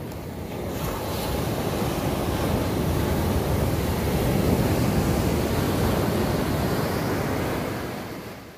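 A loud, steady rushing noise that swells over the first few seconds, holds, and fades away near the end.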